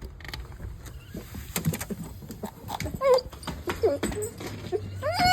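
Golden retriever whining: a few short calls that slide down in pitch, then a longer, louder whine near the end, with some light knocks before the calls begin.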